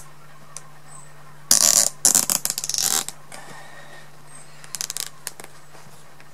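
Nylon cable ties being zipped tight around a rubber suspension airbag to squeeze it down. There are two quick runs of rapid ratcheting clicks about a second and a half to three seconds in, and a shorter run near five seconds.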